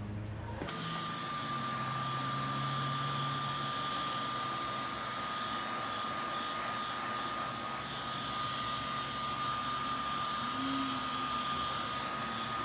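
Electric hot-air blower running steadily with a thin high whine over the rush of air, switched on about a second in. It is heating a phone's glass screen to soften the adhesive for prying.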